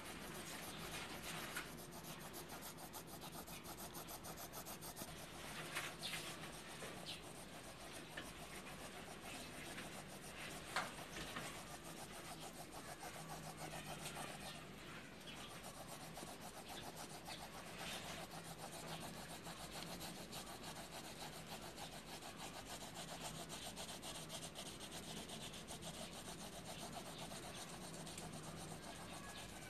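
Pencil shading on lined notebook paper: rapid back-and-forth strokes of graphite scratching steadily across the page, with an occasional louder tick.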